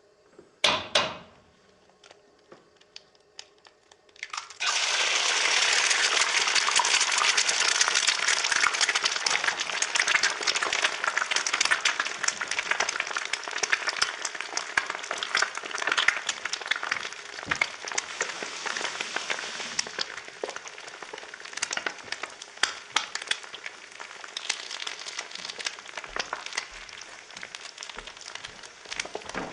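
An egg cracked open with one sharp crack about a second in; a few seconds later it hits hot oil and sizzles suddenly, a dense crackling and spitting that eases a little toward the end.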